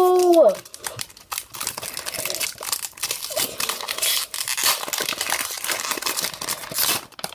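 A drawn-out spoken word falls away in the first half second. Then a foil Pokémon booster-pack wrapper crinkles and tears as it is worked open by hand, a dense run of rustling and small crackles, strongest about four seconds in and again near the end.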